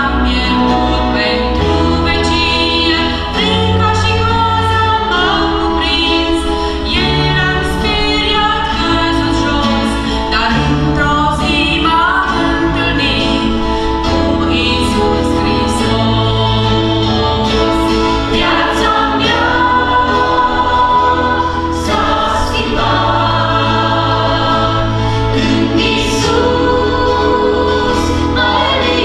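Mixed group of women and men singing a Christian worship song together, accompanied by acoustic guitar and electric bass.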